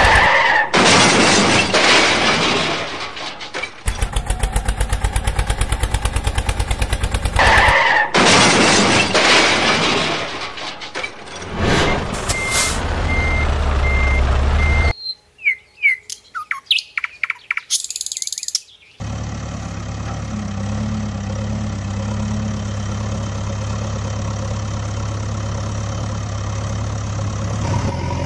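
Dubbed-in vehicle engine sound effects. A fast-chugging engine with loud noisy rushes fills the first dozen seconds, then a low rumble. Birds chirp for a few seconds, and a steady low engine idle hum runs through the last nine seconds.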